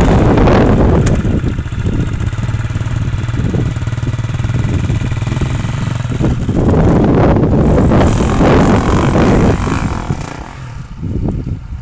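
KTM enduro motorcycle engine revving hard, the throttle opening in surges as the bike climbs a steep grassy slope, loudest about two thirds of the way in, then fading near the end as it gets farther away.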